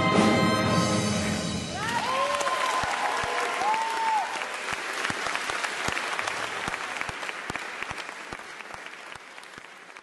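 The final held chord of a choir and band with horns stops about two seconds in, and the audience breaks into applause with a few whoops of cheering early on. The applause fades out near the end.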